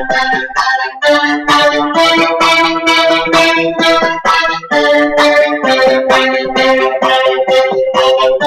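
Playback of a programmed track from FL Studio: a Sytrus software-synth melody in sustained, keyboard-like notes over a drum beat of quick, regular hits.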